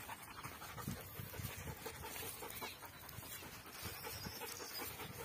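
Belgian Malinois panting, quiet and quick, in many short breaths.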